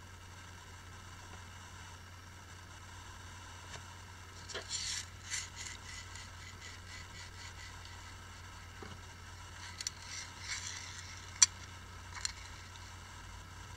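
Tiny phone screws clinking and scraping in a shallow round metal parts dish as the dish is handled and a fingertip pushes the screws around. The clinks come in a few short clusters, with one sharp tick near the end.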